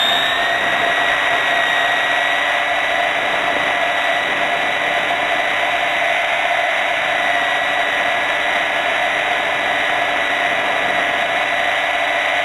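Hurricane 550 RC helicopter's motor and rotor whining steadily in flight, heard from a camera mounted on the helicopter itself.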